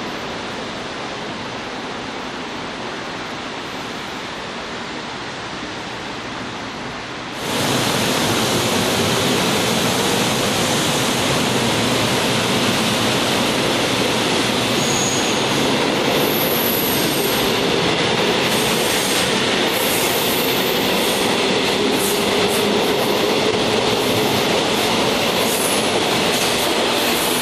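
Steady background noise for about seven seconds, then, suddenly louder, a Seoul Metro Line 2 MELCO chopper-controlled electric train running past: steel wheels on rail with a faint wavering whine and a few brief high-pitched wheel squeals.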